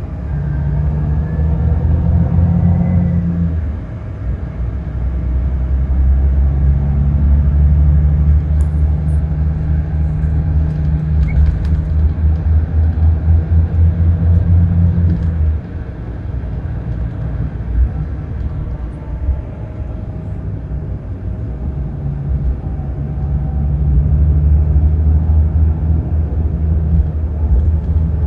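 Scania K360 bus's diesel engine running, a deep drone whose level rises and falls. It pulls hard at the start, eases about four seconds in, builds again and holds until about fifteen seconds in, drops back, then builds again from about twenty-two seconds.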